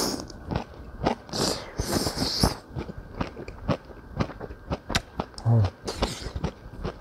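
A man eating jjamppong noodles: several loud slurps of the noodles and broth, with wet chewing and smacking clicks between them. A short hummed "mm" comes about five and a half seconds in.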